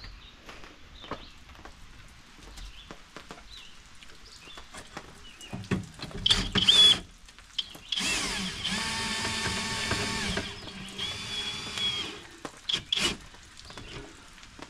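Cordless FLEX drill/driver cranking a travel trailer's stabilizer jack, running in bursts: a short spin about six seconds in, a longer steady run of a couple of seconds, then two brief spins near the end.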